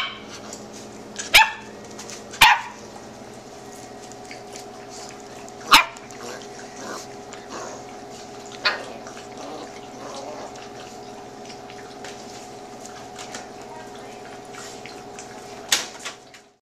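Puppies giving short, sharp barks every few seconds, about six in all, over a steady low hum.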